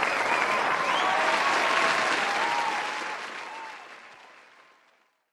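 Audience applause with a few faint high voices calling out over it. It fades out over the last two seconds or so.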